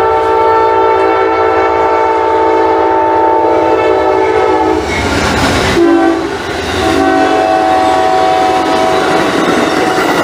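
Amtrak P42 passenger locomotive sounding its horn as it approaches and passes: a long chord, a short lower blast about halfway through, then another long blast. The rumble and rush of the train going by fills the middle.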